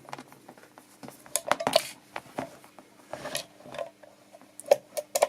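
A mono jack cable's plugs being pushed into the jack sockets of a Cobra cable tester: irregular clicks and scrapes, busiest about one and a half to two seconds in, with two sharp clicks near the end.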